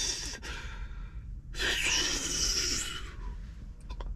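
A person blowing out a long breath of vape smoke through pursed lips, trailing off about half a second in. A second long, breathy exhale or draw follows about a second and a half in and lasts about a second and a half.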